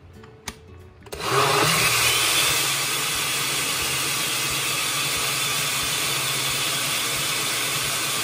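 Countertop blender with a glass jar switched on about a second in. Its motor spins up with a brief rising whine, then runs steadily at speed, puréeing boiled squash and sweet potato in water.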